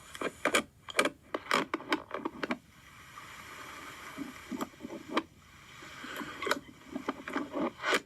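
Slime being squeezed and poked by hand, giving a run of sticky clicks and pops with a soft squelching wash in between.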